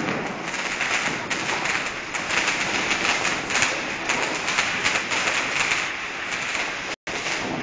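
Fireworks and firecrackers going off in a dense, rapid string of sharp pops and crackles, with no let-up. The sound cuts out for an instant near the end.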